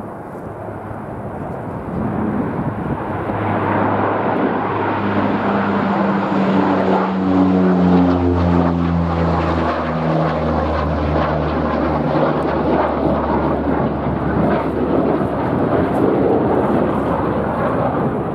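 Passenger airliner on landing approach passing close by. Its engine noise swells to a loud rush, and the engine tones slide down in pitch as it goes past, around the middle.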